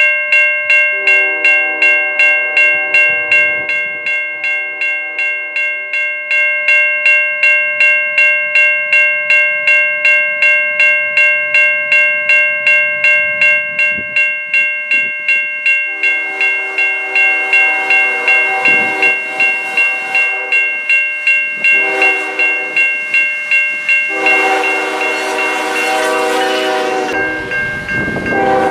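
Locomotive horn of CN ES44DC Gevo 2243 blowing almost without a break as the freight train approaches. It is a chord of several tones that pulses about twice a second, and its lower notes drop in and out. Near the end the horn stops and the rumble of the locomotives and train rises as they draw close.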